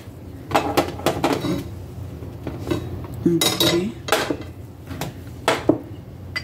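Dishes knocking and clinking as a plate is set down on a rack and glass bowls are moved about: a series of separate knocks and clinks, with a longer clatter a little past halfway.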